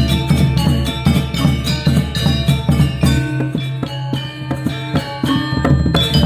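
Instrumental music of fast, busy struck pitched percussion and drums over a sustained low bass.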